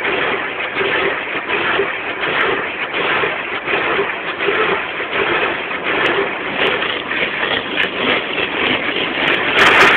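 Automatic car wash heard from inside the car's cabin: a steady rush of water spray on the windshield and body, growing louder and brighter near the end.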